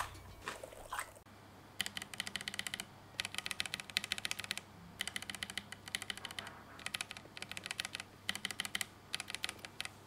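Akko Lavender Purple tactile switches with keycaps in a Keychron Q1 board, pressed and released rapidly in about eight quick runs of clacks, comparing an unlubed switch against a lubed one.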